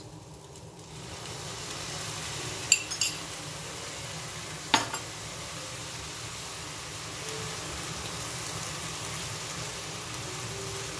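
Rice and vegetables frying in a pan: a steady sizzle that builds about a second in as the sauce hits the hot pan. A few sharp clicks of the spatula against the pan sound between about three and five seconds in.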